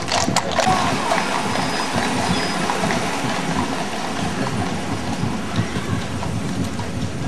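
Horses' hooves clopping on the street for about the first half-second, then the steady engine and tyre noise of police vehicles, a mobile-command truck and a pickup, driving past one after the other.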